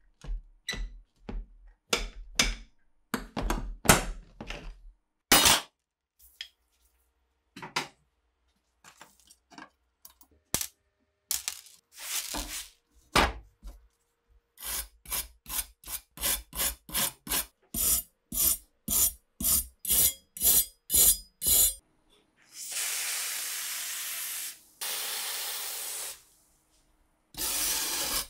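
Bolt cutters snipping through the rusty rivets of an old cleaver's handle, with sharp snaps and small metal bits knocking on the bench. Later a hand wire brush scrubs rust off the steel blade, first in quick strokes about two a second, then in longer steady scrubs.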